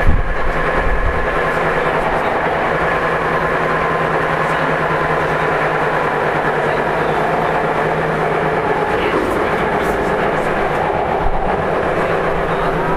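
Tokyu 9000 series electric commuter train running at speed, heard from on board: steady motor and wheel noise with high steady tones and a rhythmic clatter from the rails. A low hum drops out about two-thirds of the way in.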